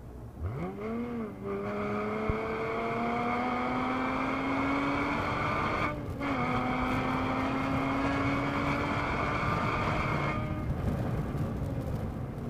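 A 2013 Porsche Boxster S (981) 3.4-litre flat-six heard from inside the cabin at full throttle. The engine note sweeps up sharply as the throttle opens about half a second in, then climbs steadily in third gear. Near six seconds a short break marks the upshift to fourth, and the engine pulls on until the driver lifts off about ten and a half seconds in.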